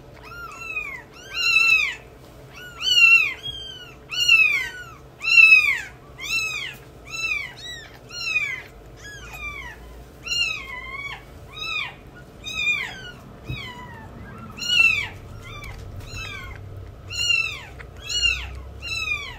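Newborn kitten mewing over and over while being bottle-fed: short, high cries, about two a second, each rising then falling in pitch, with a brief pause a little past the middle.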